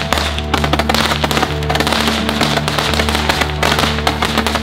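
Handheld roman candle firing shot after shot, with irregular sharp pops and crackling, over background music with steady low notes.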